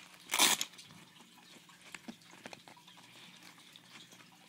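Handling noise from fitting an airsoft battery into a nylon vest pouch: one short, loud rustle about half a second in, then faint small clicks and taps.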